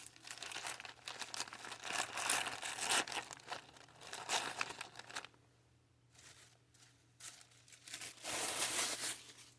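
Crinkling and rustling of packaging as a bead-box bag is opened and its small bags of beads are handled, in irregular crackles for about five seconds, then quieter, with another burst near the end.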